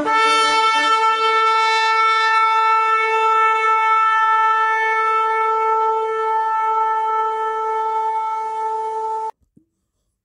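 A single long horn blast: one steady note held for about nine seconds, then cut off suddenly.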